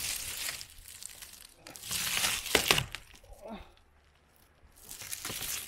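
A 100-watt flexible solar panel being peeled off a van roof: the double-sided tape tears away and the panel crackles in three bursts, with sharp cracks in the loudest, middle one. The crackling is the panel's cells breaking as it bends.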